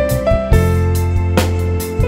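Instrumental background music: a keyboard melody of held notes over a steady drum beat.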